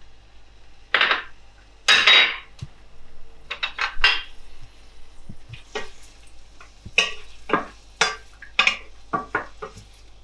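Wooden spoon stirring sliced garlic in olive oil in a stainless steel pot, knocking and scraping against the metal. There are two louder knocks about one and two seconds in, then quick scrapes and taps about two a second.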